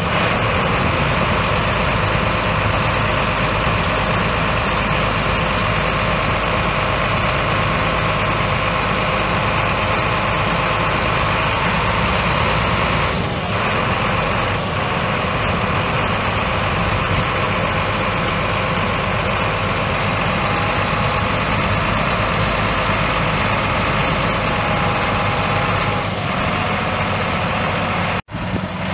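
Caterpillar 3116 6.6-litre inline-six turbo diesel of a GMC C7500 truck idling steadily. The sound cuts out briefly near the end.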